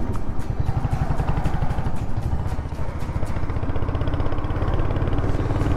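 Royal Enfield Hunter 350's single-cylinder engine running under way, a steady stream of rapid exhaust pulses; the engine note settles slightly higher about two-thirds of the way through.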